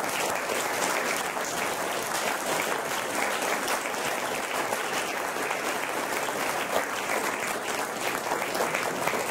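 Audience applauding steadily: many hands clapping together in a room.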